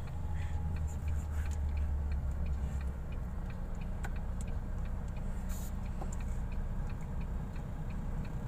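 Truck engine running with a low, steady hum heard inside the cab, with an indicator relay clicking evenly, about two to three clicks a second, as the turn signal is on.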